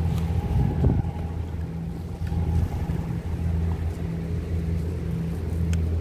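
Diesel engine of a passing derrick-masted cargo workboat, a steady low drone, with wind buffeting the microphone.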